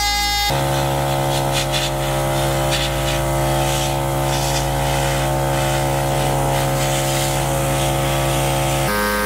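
Airbrush compressor running with a steady hum, while the airbrush sprays paint with a light hiss in short spurts. The hum changes pitch abruptly near the end.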